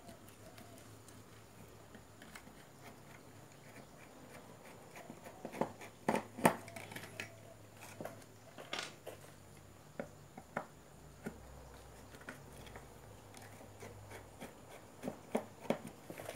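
Scattered light clicks and taps of a screwdriver and small parts being handled on a car amplifier's circuit board, over a faint low hum.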